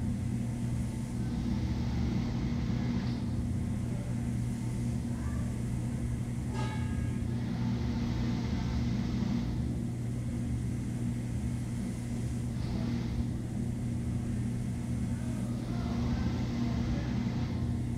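Soft swishes of thread being drawn through umbrella fabric by hand-sewing, coming back every few seconds, over a steady low hum. One small clink about two thirds of the way in.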